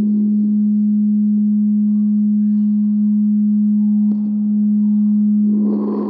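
A single low bass tone held at one steady pitch, with little in the way of overtones. It breaks off for an instant about four seconds in, and a rougher rumbling noise swells back in underneath near the end.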